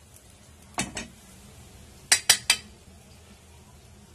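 A metal spoon knocking against the pan: two knocks just under a second in, then three quick, sharp clinks about two seconds in.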